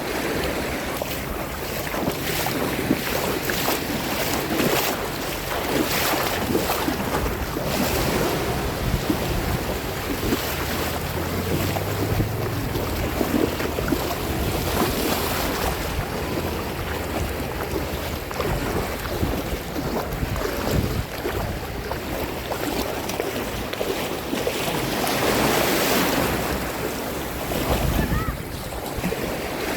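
Sea waves washing and breaking, with wind buffeting the microphone; the surf swells louder near the end.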